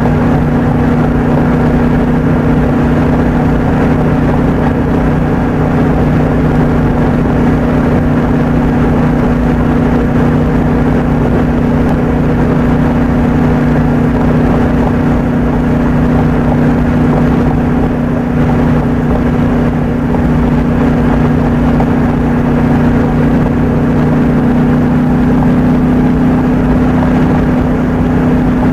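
Steady road and engine noise heard inside a car cruising on a highway, with a constant low hum, played back at double speed.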